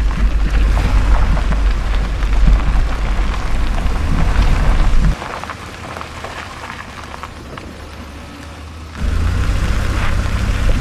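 Vehicle bouncing along a rough, washboarded gravel road: a loud low rumble of tyres and suspension, with knocks and rattles from the bumps. It drops much quieter from about five seconds in, then comes back loud near the nine-second mark.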